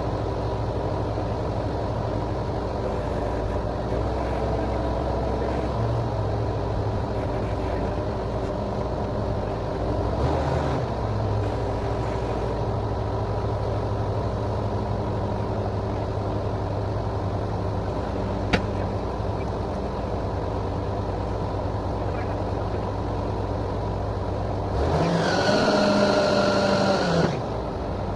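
Borewell drilling rig's engine running steadily under load, a continuous hum. About 25 s in, a louder higher-pitched sound rises, holds for about two seconds and falls away.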